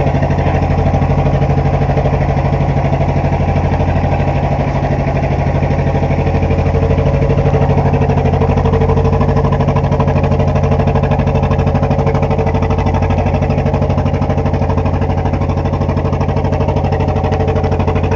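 A fishing boat's engine running steadily under way, with a fast even pulse.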